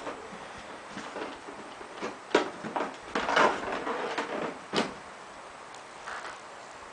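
Hands handling the parts of a solar panel kit: a few sharp clicks and knocks, with a stretch of scraping and rustling about three seconds in.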